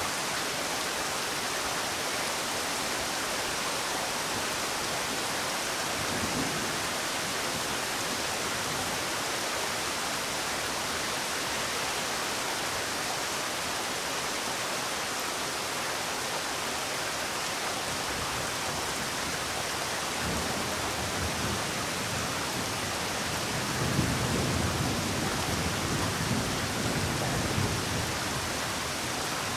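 Steady rain falling, an even hiss. A low rumble of thunder swells up near the end and fades again.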